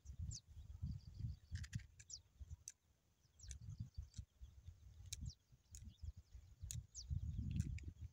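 Small birds giving short, high chirps that fall in pitch, scattered every second or so. Under them runs an uneven low rumbling, with a few sharp crackles or clicks.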